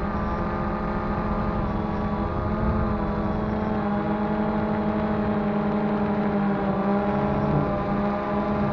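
DJI Phantom 2 quadcopter's motors and propellers in flight: a steady hum of several tones that waver slightly in pitch, picked up close by the action camera mounted on the drone.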